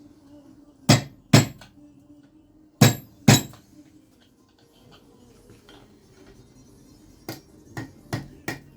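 Mallet striking a carving chisel into wood: four loud, sharp blows in two close pairs, about a second in and about three seconds in, then four lighter taps in quick succession near the end.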